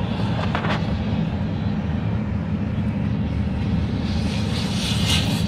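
CSX freight train cars, tank cars and flatcars, rolling past, heard from inside a car: a steady low rumble of wheels on rail, with sharp clacks about half a second in and again near the end.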